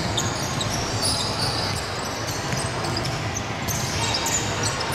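Game sounds of live basketball play on a wooden court: a basketball bouncing and players' feet on the floor, over a steady background noise of the hall.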